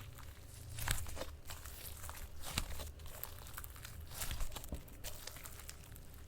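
Ink slime being squished and stretched by hand, making irregular sticky crackles and clicks.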